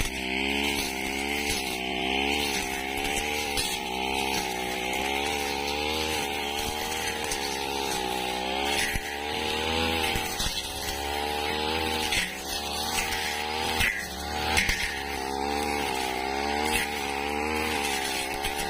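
Backpack brush cutter engine running at high revs, its pitch rising and dipping repeatedly as the blade cuts through dry grass and weeds.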